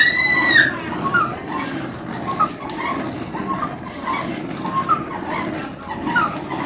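Traditional rice husking mill grinding with a steady low rumble as its upper drum is swung round by a wooden pole, while small birds chirp again and again. A loud pitched call at the very start.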